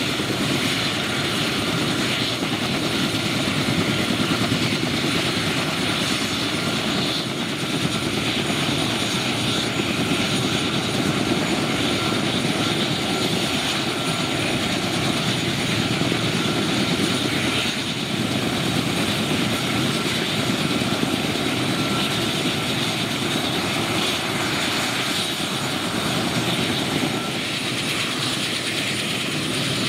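Kamov Ka-32 helicopter running on the ground, its twin turboshaft engines and coaxial rotors turning steadily, with a thin high turbine whine over the rotor noise.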